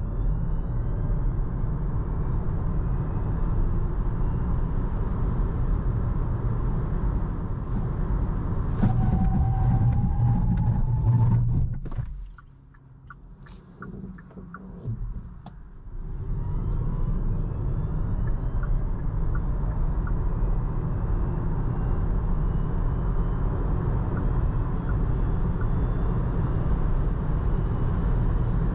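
Kia e-Soul's 204 hp electric drive accelerating hard, its motor whine rising steadily in pitch over heavy tyre and road noise. About twelve seconds in, the noise drops away suddenly, leaving a few seconds of quiet with faint, evenly spaced ticks. Then a second full-throttle launch begins, with the whine climbing again.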